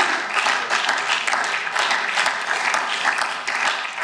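Applause from members of parliament: many people clapping steadily through the whole stretch.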